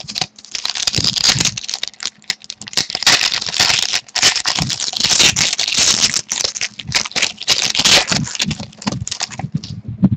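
A trading-card pack wrapper crinkling and tearing as it is opened, with the cards rustling and flicking against each other as they are pulled out and leafed through.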